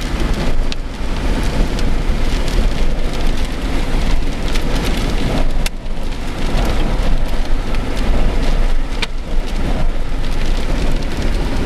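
Heavy rain and strong storm wind, the wind buffeting the microphone as a steady low rumble, with a few sharp hits scattered through the noise.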